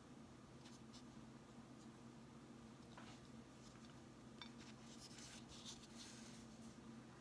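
Near silence over a low steady hum, with a few faint scratchy rustles, the most between about five and six seconds in: a small paintbrush stroking over a painted gourd and the gourd being handled on a towel.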